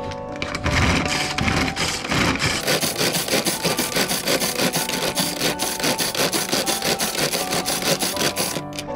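Pull-string manual food chopper worked with quick repeated pulls of its cord, each pull spinning the blades with a whirring, rasping rattle as they mince shimeji mushrooms in the bowl. It starts about half a second in and stops just before the end.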